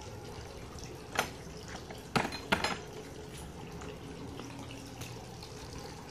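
Steady trickling and dripping of water from a tiered garden fountain, broken by a few sharp clicks about a second in and again around two seconds in.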